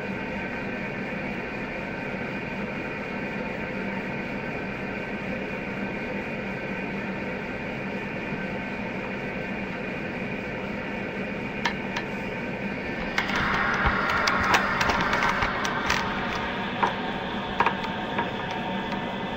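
Analogue TV static: a steady hiss with a low hum under it. About thirteen seconds in it grows louder for a few seconds, with crackles and clicks, then settles back.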